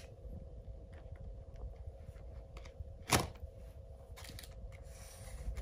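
A single sharp plastic knock about three seconds in, as the noodle tray is set into the black plastic outer bowl of a self-heating instant noodle pot, over a low steady hum.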